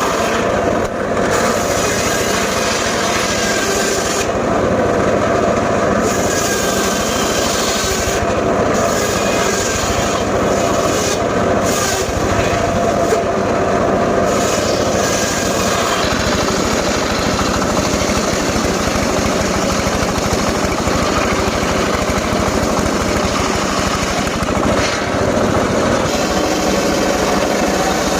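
Engine-driven saw running continuously at working speed while cutting gmelina timber, with brief changes in its high-pitched noise every few seconds.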